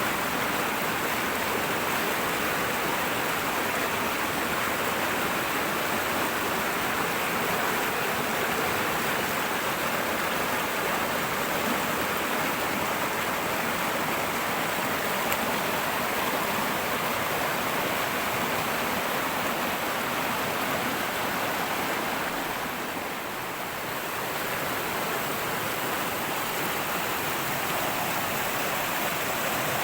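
Fast-flowing river water rushing and splashing over rocks, a steady full rush that eases briefly about two-thirds of the way through.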